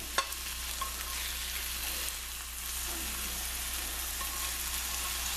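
Egg white omelet sizzling steadily in a non-stick skillet while a silicone spatula pushes and turns it to fold it over, with one sharp tap just after the start.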